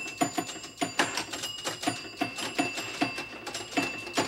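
Pinball machine in play: a quick, uneven clatter of flipper and bumper clacks, about three a second, with high ringing bell tones over them.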